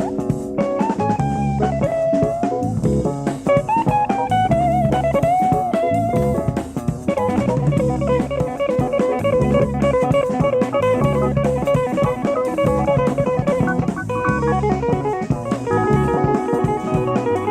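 Live jazz-fusion band playing, taped from an FM radio broadcast onto cassette. An electric guitar solo bends its notes over drum kit for the first several seconds, then shifts to a long run of fast repeated notes from about seven seconds in.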